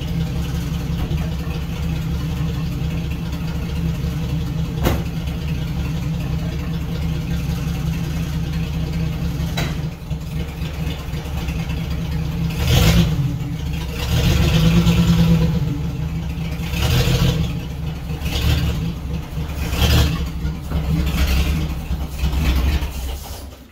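1976 AMC Gremlin's engine running at idle, then given several short bursts of throttle in the second half as the car creeps forward. The engine sound stops abruptly at the very end.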